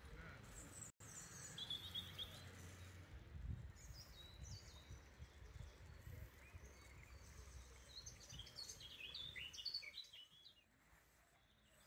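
Faint birdsong: scattered short, high chirps and twitters, busiest a couple of seconds before the end, over a low background rumble.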